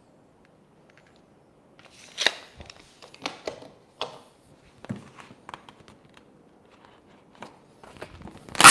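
Adhesive vinyl wrap being handled against a mini fridge's metal surface, with scattered crinkles and sharp crackles. Near the end comes a loud rip as the sheet is peeled back off the surface to reposition it.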